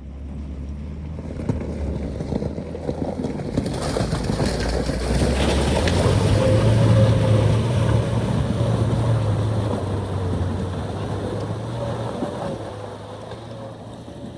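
Vehicle engine working hard as it drives into a river ford, with a rush of water around it; the engine note climbs about six seconds in and eases off after about twelve seconds.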